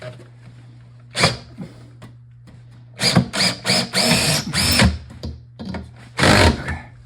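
Regular (non-hammer) power drill with a 3/16-inch masonry bit boring into fireplace brick in three bursts: a short one about a second in, a longer run in the middle, and another short one near the end, the motor pitch rising and falling with each squeeze of the trigger.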